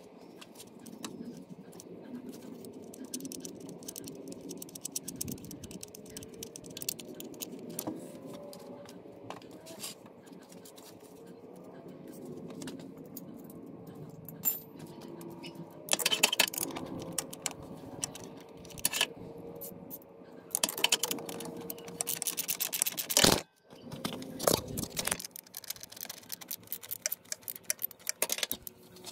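Hand tools working on a car engine: metal clinking, scraping and scattered clicks as the water pump's bolts are loosened, with bursts of rapid clicking about halfway through and again a few seconds later.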